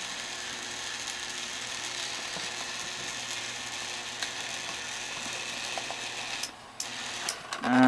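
Electric linear actuator's motor and gearbox running steadily as it drives the crushing bar down; it stops about six seconds in, followed by a few small clicks.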